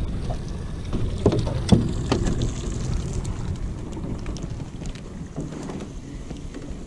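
Steady low rumble of wind and water noise aboard a small aluminum fishing boat, with a few light knocks about one to two seconds in.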